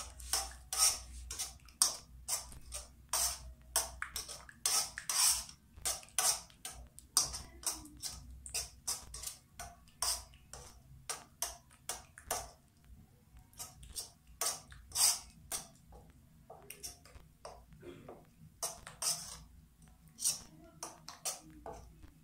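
Metal spoon scraping and clinking against a steel wok while stirring melting butter, in quick irregular strokes about two a second, with a short lull about two-thirds of the way in.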